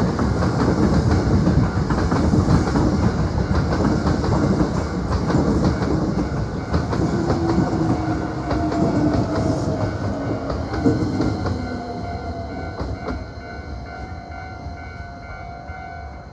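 Hankyu electric train passing close by, wheels clattering over rail joints. It fades away over the last few seconds.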